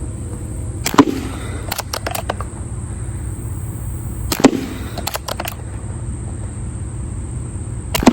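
Air gun firing three shots about three and a half seconds apart, each a sharp crack followed a moment later by a few lighter clicks.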